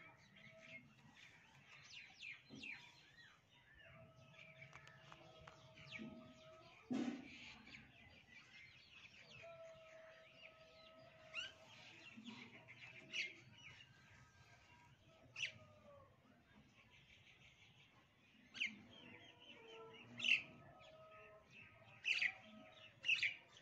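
Birds chirping on and off, with several sharper, louder chirps in the second half. A held tone of unclear source recurs at intervals, a second or two at a time.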